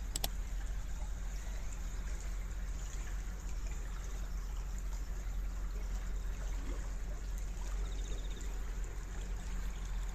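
Water flowing steadily in an irrigation canal, a continuous trickling rush, with a single sharp click right at the start.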